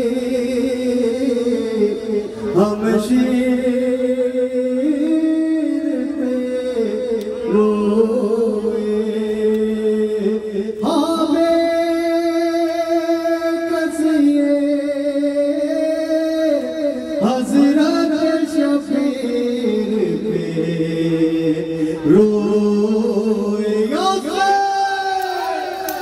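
Men chanting a noha, a Shia mourning lament, into a microphone: a slow melody of long held notes that step up and down.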